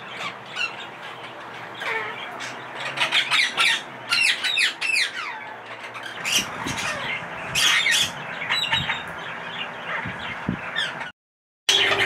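Pet parrots squawking and screeching over and over, in short, harsh calls that bend in pitch. The calls stop suddenly just before the end.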